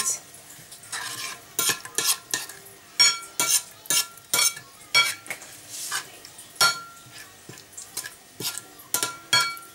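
Metal spoon stirring an oily seasoning paste in a ceramic plate: irregular clinks and scrapes of the spoon against the plate, about two a second, some ringing briefly.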